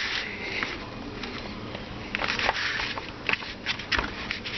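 Hands handling and pressing together the two plastic halves of an electric jigsaw's housing: rubbing and scraping of plastic, with a few sharp clicks between about three and four seconds in.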